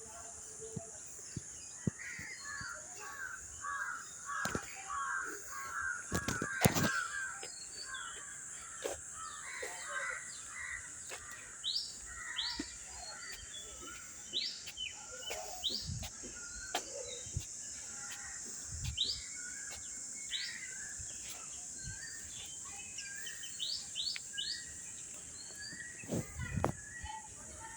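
Birds calling outdoors: a run of repeated harsher calls a few seconds in, then scattered short, high chirps, over a steady high hiss. A few soft low thumps come in the second half.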